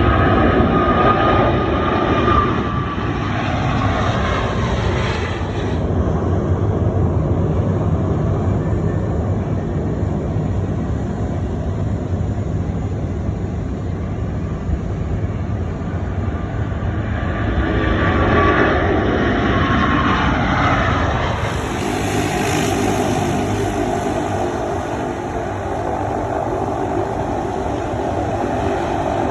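Jet airliner engines running loud and steady, with a high whine that falls in pitch near the start and again about two-thirds of the way through as aircraft pass.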